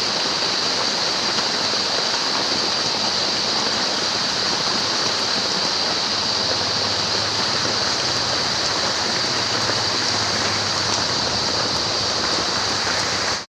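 Steady, heavy rain falling outdoors, a dense even hiss that cuts off suddenly at the end.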